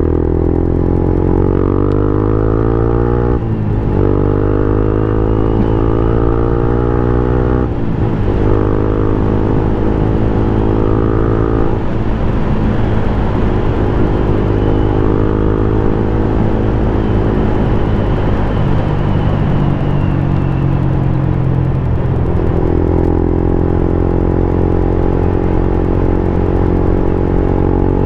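Yamaha Sniper 150's single-cylinder four-stroke engine running through an aftermarket MVR1 power pipe exhaust while riding. The pitch climbs and drops off twice, about three and a half and eight seconds in, as the rider shifts up. It then holds fairly steady while cruising.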